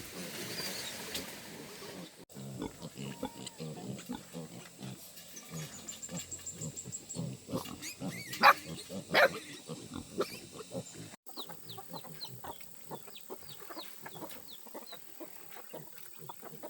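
Pigs grunting irregularly, with two louder squeals about eight and nine seconds in and short high chirps in the later part.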